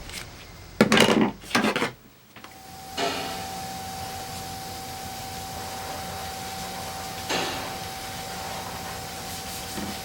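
Two short clattering knocks, then an electric motor starts about two and a half seconds in and runs steadily with a constant whine.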